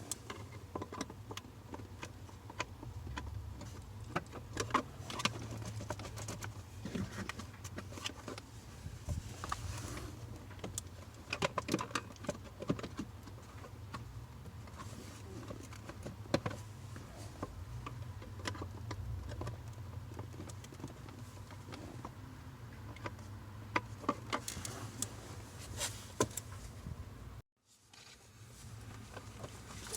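Scattered clicks, taps and light rattles of screwdrivers working on the plastic steering-column trim panels as they are unscrewed and pried off, over a low steady hum. The sound cuts out for a moment near the end.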